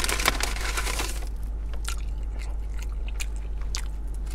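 A person chewing a mouthful of food with close, wet mouth sounds: a dense stretch of chewing in the first second or so, then scattered smacks and clicks, over a steady low hum.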